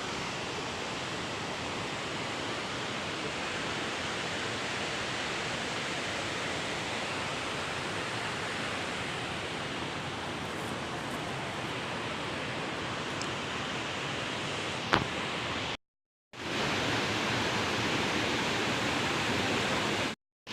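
Waterfall's steady rushing water. It cuts to silence twice, briefly, and comes back a little louder after the first break; there is a single sharp click just before that first break.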